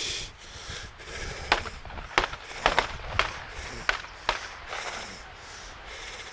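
A run of six short, sharp clicks or cracks, about two a second, starting about a second and a half in, over a light outdoor background.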